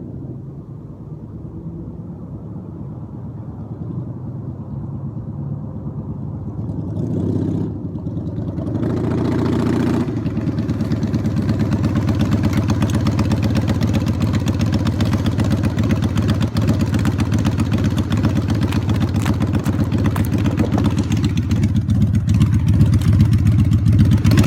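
1994 Honda Magna's V4 engine running, blipped twice about seven to ten seconds in, then held at a louder, faster run with rapid exhaust pulses that slowly grows louder.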